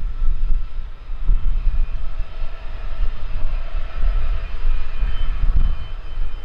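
Learjet 75 business jet taxiing, its twin Honeywell TFE731 turbofans giving a steady whine at low power, with heavy wind buffeting on the microphone.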